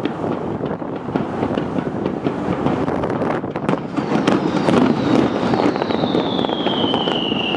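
Fireworks popping and crackling in a quick irregular patter over a steady rushing noise. From about four seconds in, a high whistle slides down in pitch and then holds.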